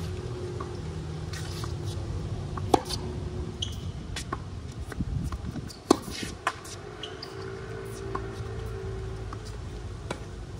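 Tennis rally on a hard court: two sharp pops of racket striking ball, about three seconds apart, with lighter clicks of the ball and shoes between. Under them runs the steady low hum of passing traffic, which fades in the middle and comes back.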